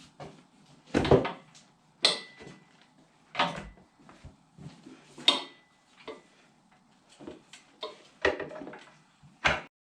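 Metal clanks and knocks from handling a wheel, tire and tools on a manual motorcycle tire changer, about half a dozen sharp hits. A couple of them ring briefly like struck metal, with quieter handling and scraping between. The sound cuts off suddenly near the end.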